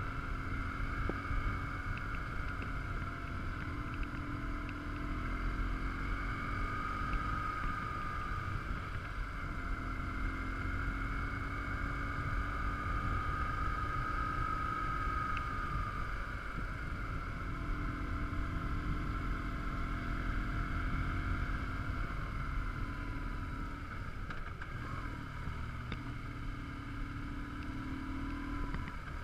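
BMW R1150GS Adventure's boxer twin running at a steady road cruise, its drone drifting gently up and down in pitch with the throttle, under a constant rush of wind over the microphone.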